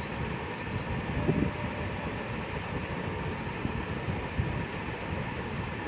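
A steady low rumble, like a running motor or fan, with a brief louder knock about a second in.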